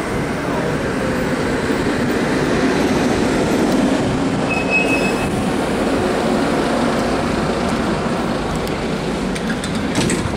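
Tatra T3-type tram arriving at a stop, with the steady rumble of its running gear and motors, and a short high-pitched squeal about five seconds in. A few sharp clicks near the end.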